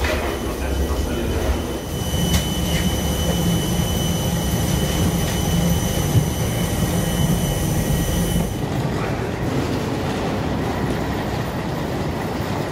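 Steady mechanical drone with several high, steady whining tones from jet-bridge and apron machinery around a parked airliner. About eight and a half seconds in the whine stops and a duller, lower hum remains.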